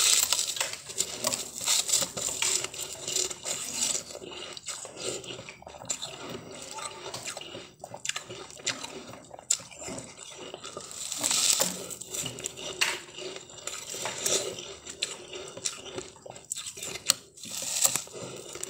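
Close-up crunching and crackling of frosty, snow-like ice as a person bites and chews it, with many irregular snaps and clicks.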